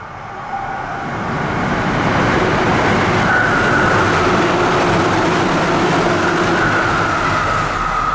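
Tsukuba Express commuter train passing through a station at high speed without stopping, around 130 km/h. The rush of wheels on rail builds about a second in and stays loud, with a steady high whine over it.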